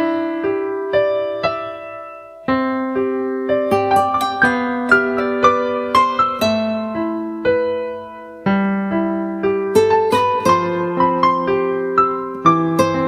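Background music: a gentle electric piano melody with sustained chords and single struck notes.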